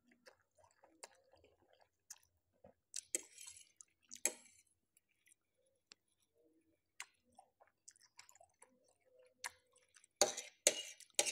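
Close-up eating sounds of a person chewing and slurping Korean spicy instant noodles: small wet mouth clicks, with two short slurps about three and four seconds in. A few louder sharp sounds come near the end.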